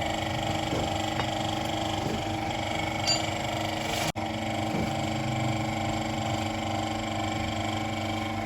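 Steady machine hum holding several fixed tones, cut off for an instant about four seconds in.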